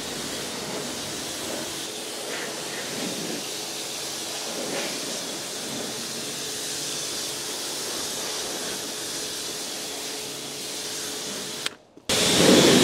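Kärcher pressure washer jetting water onto a car's bodywork: a steady hiss of spray with a faint hum underneath. Near the end it cuts out abruptly for a moment and comes back louder.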